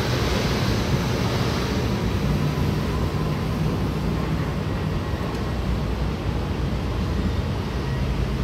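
MRT Yellow Line monorail train on rubber tyres pulling away along its elevated concrete guideway, a steady rumble and hiss with a low motor hum, mixed with traffic from the road below.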